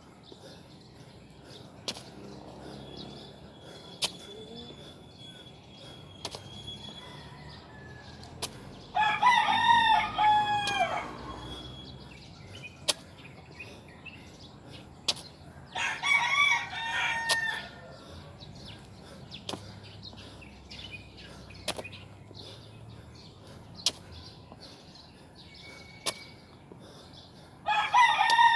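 Rooster crowing three times, each crow about two seconds long, the last beginning just before the end. Sharp faint clicks come about every two seconds in between.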